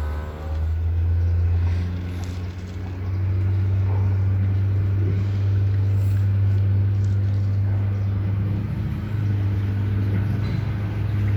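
Houseboat's engine running steadily with a low drone, a little louder from about three seconds in.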